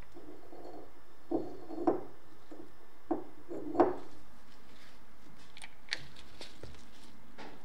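Small clicks and short scrapes of steel ball bearings being pushed into the greased bearing cup of a bicycle pedal with a small tool, then of the pedal being handled and pressed together. A handful of sharp ticks, the loudest nearly four seconds in.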